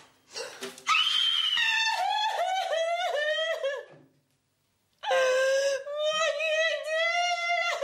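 A woman shrieking with laughter: a quick run of high-pitched laughing cries, then, after a short silence, one long held shriek.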